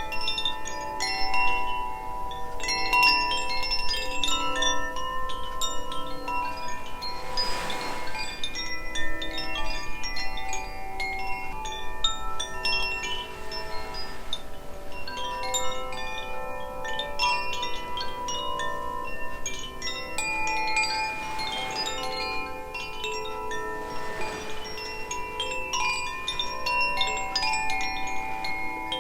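Two Koshi chimes, Aria (air) and Ignis (fire), rung together. Their tuned metal rods are struck over and over by the clapper inside, making a continuous, overlapping tinkling with many notes ringing on.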